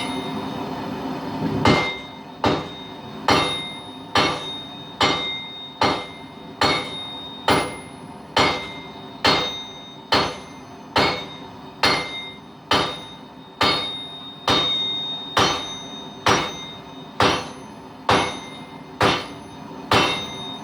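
Hand hammer striking steel on an anvil while forging, in a steady rhythm of a little over one blow a second, each blow ringing briefly. The blows begin about two seconds in.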